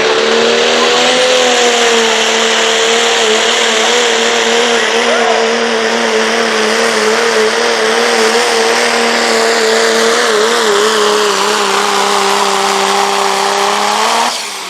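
Turbo diesel pickup truck's engine held at high revs under full load as it pulls the sled, its pitch wavering steadily with a high turbo whistle over it. Near the end the engine lets off and the sound drops away suddenly.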